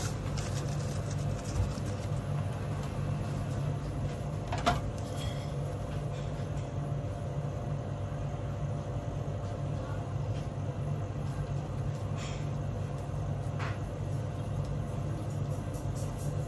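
Steady low machine hum of commercial kitchen equipment, with a few short light knocks as the bamboo rolling mat and nori sheet are handled on the cutting board, the loudest about five seconds in.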